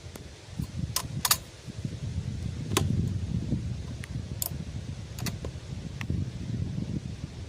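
Light metallic clicks and rattles, about eight over several seconds with two close pairs, from metal parts or cartridges being handled. A low rumble of wind on the microphone runs beneath them.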